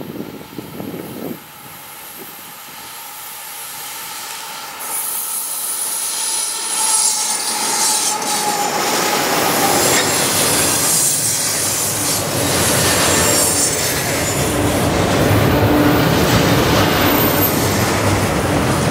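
Double-stack container train led by two GE ES44AC diesel locomotives approaching and passing, growing louder over the first half. The loaded well cars then roll by steadily, with high wheel squeal and clickety-clack.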